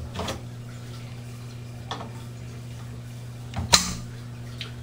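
A few scattered knocks and clunks as the remaining drain piping of an old garbage disposer is pulled off under a kitchen sink; the loudest is a sharp knock about three and a half seconds in. A steady low hum runs underneath.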